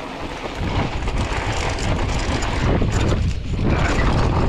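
Mountain bike rolling downhill on a dry gravel and dirt trail: a steady rush of wind buffeting the camera microphone over tyre rumble, with scattered clicks and rattles from the bike over the rough surface. The rumble picks up about half a second in as the bike gathers speed.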